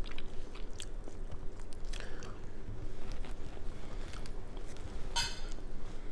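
Close-up chewing with small crackles and clicks as shellfish shells are peeled by hand, plus a brief high-pitched sound about five seconds in.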